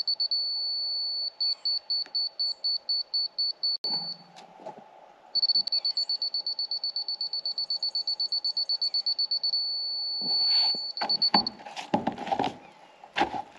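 Laser level receiver on a grade rod beeping at one high pitch. Runs of slower beeps, then faster beeps, alternate with a steady unbroken tone, the sign that the receiver is hunting for and then sitting on the laser's level line. In the last few seconds there are several knocks and thumps.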